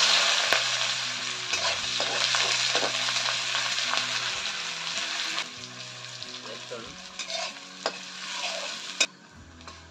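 Sliced onion and garlic sizzling in hot oil in a steel karahi, stirred with a metal spatula that scrapes the pan now and then. The sizzle is loud at first, drops away about halfway through, and stops near the end.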